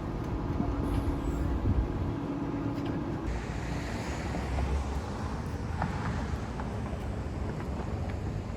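Steady rumble of road traffic outdoors. About three seconds in, the sound turns to a broader hiss.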